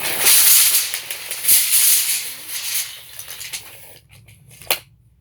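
Steel tape measure blade running through its case with a rattling whir that fades out after about three seconds, then one sharp click.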